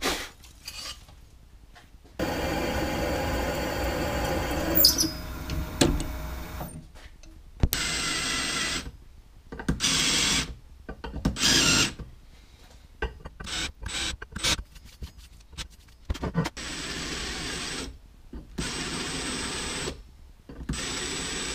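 A drill press running steadily for about four and a half seconds on an aluminium plate. Then a cordless drill runs in short trigger bursts and longer spins of one to two seconds, driving bolts into the plate.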